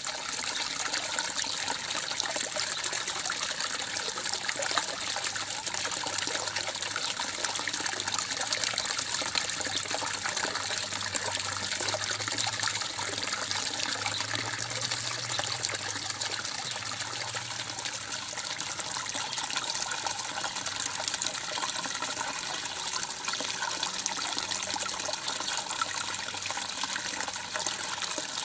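Water from a garden pond's water feature trickling and splashing steadily into the pond.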